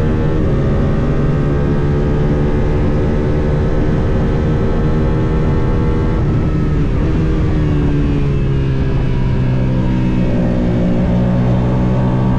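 Suzuki SV650 race bike's V-twin engine running hard at high revs, with wind rushing over the bike-mounted camera. About halfway through the engine pitch dips and wavers, then holds steady a little lower.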